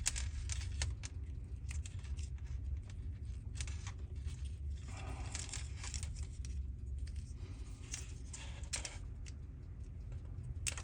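Small plastic clicks and scraping as a wiring-harness connector on an EFI golf cart engine is worked loose by hand, over a steady low hum.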